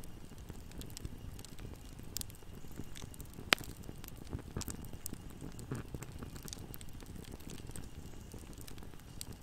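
Wood fire burning, with a low steady rumble of flames and scattered crackles. One sharp, loud pop comes about three and a half seconds in.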